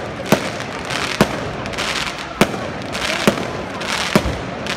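Aerial firework shells bursting overhead: five sharp bangs, about one a second, over a steady noisy background.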